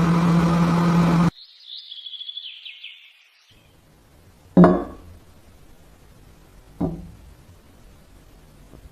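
A steady motor hum from a power tool stops abruptly about a second in, followed by a faint high squeal. Then two sharp metallic clinks with a short ring come about two seconds apart, the first louder.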